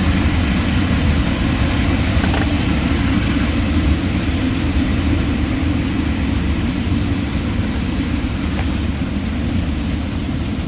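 Train running by: a steady, heavy rumble that slowly fades.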